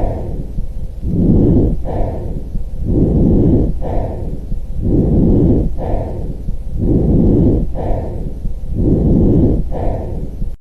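Normal vesicular breath sounds heard through a stethoscope: soft, low rustling airflow in about five regular breaths, roughly one every two seconds, each with a louder phase followed by a softer one.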